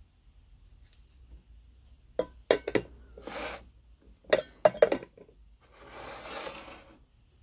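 Hard clinks and clicks as the white wick holder is set into the enamelled steel body of a Haller kerosene stove: three sharp clicks about two seconds in, three more about two seconds later, each cluster followed by softer scraping as it is seated.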